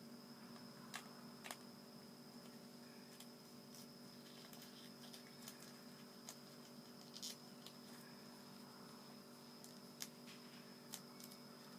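Near silence: a steady electrical hum with a few faint clicks and crinkles of origami paper being handled and folded.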